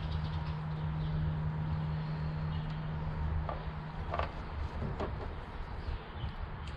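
A steady low hum and rumble that stops about four seconds in, with a few light clicks of hand tools on the engine while the 10 mm bolts holding the camshaft timing solenoids are undone.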